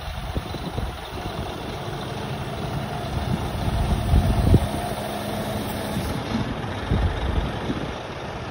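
Scania R480 truck's inline-six diesel running with the hooklift's hydraulics working as the hook arm folds down. A steady hum under the engine stops about six seconds in, with a few low thumps along the way.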